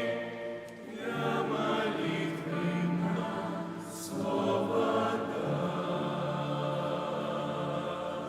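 A choir singing a slow Christian song in long held chords, with a sung hissing consonant about four seconds in. These are the closing phrases, and the sound fades away right at the end.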